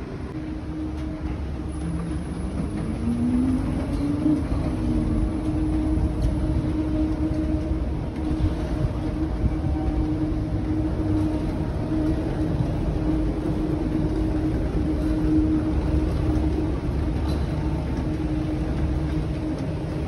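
Steady low rumble and hum of vehicles, with a motor whine that rises and then falls in pitch a few seconds in.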